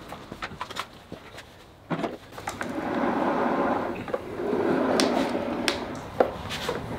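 Small old casters under a dumbbell cart loaded with adjustable dumbbells, rolling across a concrete floor with a rough, grinding rumble, in two pushes with a short pause between and a few knocks of the dumbbells shifting. Before that, the dumbbells are set down on the cart with light knocks. The casters roll poorly under the weight, and the owner suspects rough bearings.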